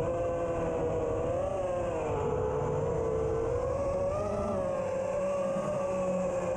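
FPV quadcopter's brushless motors and propellers whining, heard through its own onboard camera, the pitch wavering up and down as the throttle changes.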